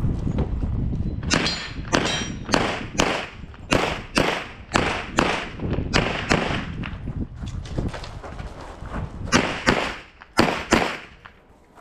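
Glock 34 9mm pistol fired in a fast string of shots, many in quick pairs, during a timed competition stage. There is a short lull two-thirds of the way through while the shooter moves, then a few more pairs near the end.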